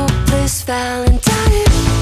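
Background music track. It thins out briefly about halfway through, then comes back in with a strong hit.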